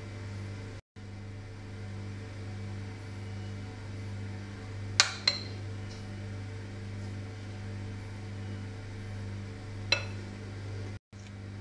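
Metal spoon clinking against a glass mixing bowl while scooping a runny egg mixture: two sharp clinks close together about halfway through and one more near the end, over a steady low hum.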